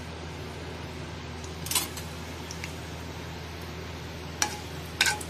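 Metal ladle clinking against a kadai a few times, about two seconds in and again near the end, as whole spices fry in hot oil over a steady low hum and hiss.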